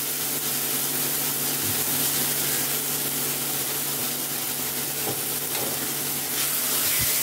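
Onion-tomato masala with a water-soaked spice paste sizzling steadily in hot oil in a steel kadhai, with a low steady hum underneath.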